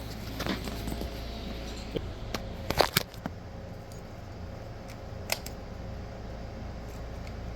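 A few sharp clicks and taps from small hard objects being handled, the loudest cluster about three seconds in and one more click a little after five seconds, over a steady low hum.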